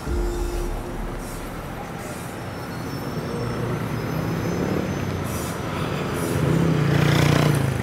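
Street traffic noise, with a motor vehicle passing close and growing louder toward the end before easing off.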